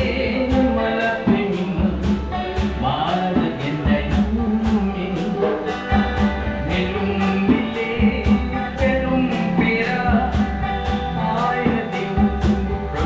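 Small live band playing an upbeat song: acoustic guitar and hand drum keeping a steady beat of about two strokes a second, with a singer.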